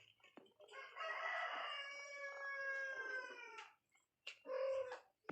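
One long, drawn-out animal call lasting about three seconds and sagging slightly in pitch at the end, followed about a second later by a short second call.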